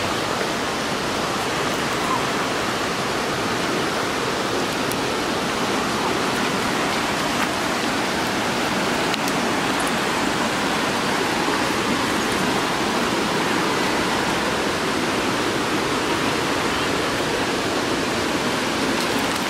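Rushing water running steadily, an even hiss without breaks or change.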